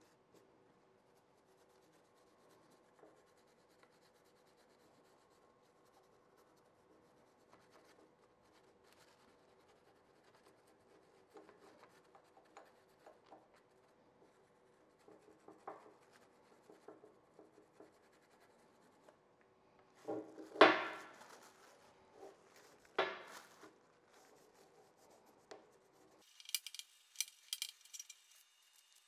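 A small hand brush scrubbing stripper-softened paint and sealer off a cast iron vise body: quiet strokes, with two louder scrubs about two-thirds of the way through.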